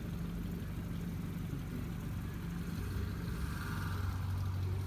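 Car engine idling, a steady low hum. Its low note shifts slightly about three seconds in.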